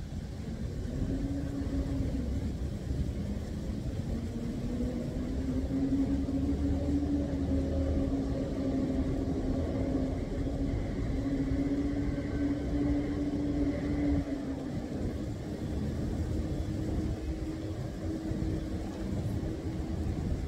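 A steady low rumble with a droning hum that drifts slightly in pitch: a motor running.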